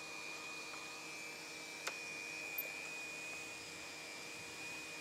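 Automatic hot-air membrane welding machine running steadily, its blower giving a hiss with a thin high whine as it heats the seam of the gas membrane. A short click about two seconds in.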